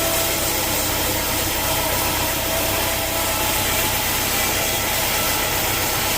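Sawmill engine running steadily: a constant mechanical hum with an even low throb under a broad hiss.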